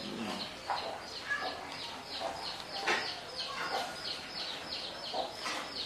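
Birds chirping steadily in a quick series of short, high, falling notes. A few light clinks and scrapes come from a spoon cutting fried banana on a plate.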